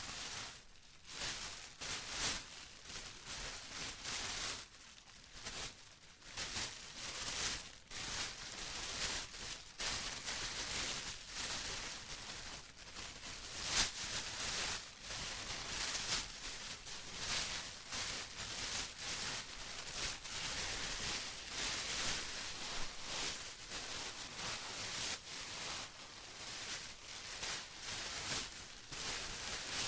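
Plastic being rustled and crinkled continuously, in irregular crackles with dense sharp crinkles.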